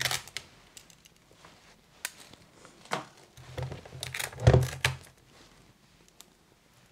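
Scattered handling sounds from hands working at the plastic body of a handheld vacuum cleaner: a few separate clicks and rustles, then a stretch of heavier handling about three and a half seconds in with a loud thump near four and a half seconds.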